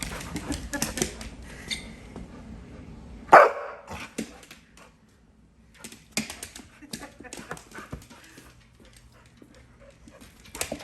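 Pit bull dog at play, giving one loud bark about three seconds in, among many light clicks and taps.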